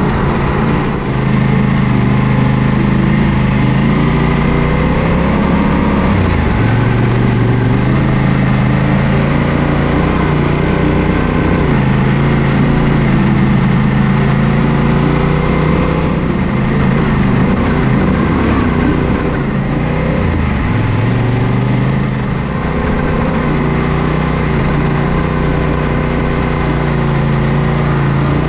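Yamaha Ténéré 700 motorcycle's parallel-twin engine running while being ridden, its revs dipping and rising several times, over a steady rushing noise.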